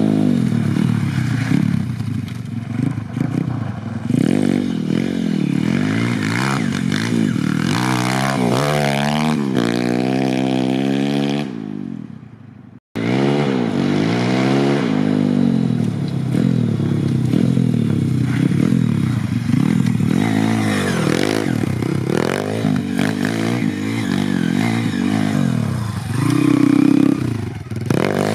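YCF 150 pit bike's single-cylinder four-stroke engine revving, its pitch climbing and dropping over and over as it rides. The sound cuts out for a moment about thirteen seconds in, and near the end the engine is held at high revs while the rear wheel spins on snow.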